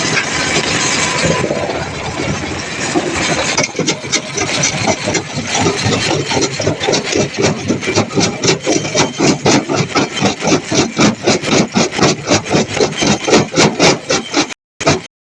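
Heavy machinery with an engine running, then a fast, steady train of sharp pounding strikes, about three to four a second, that quicken toward the end.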